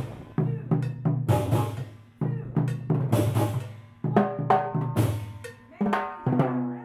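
A group drum circle playing djembe hand drums together in short rhythmic phrases, with several cymbal crashes over the drumming.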